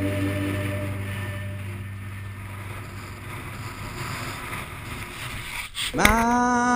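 Wind blowing across an action camera's microphone, with sea noise around a small boat, as a held music note fades out in the first second or so; music comes back in about six seconds in.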